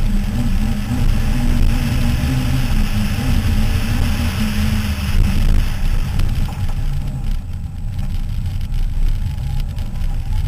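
Toyota Starlet rally car's engine running hard at speed on a gravel stage, with tyre and stone noise under it. About six seconds in, the engine note and the road noise ease off, as the car slows for a turn.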